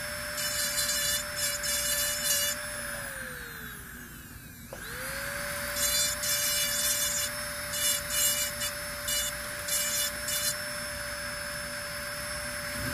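Dental lab handpiece whining steadily as its bur cuts the occlusal grooves of a carved upper molar, the cutting heard as short, irregular scratchy bursts. About three seconds in the motor winds down, and just under five seconds in it spins back up.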